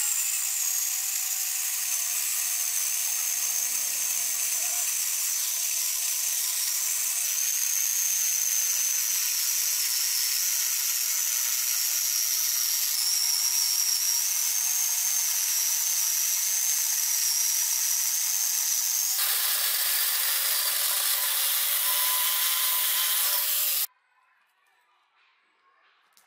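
Angle grinder fitted with a chainsaw bar adapter running flat out as its chain saws through a log: a steady, high-pitched motor whine over the rasp of the chain in wood. It cuts off suddenly a couple of seconds before the end.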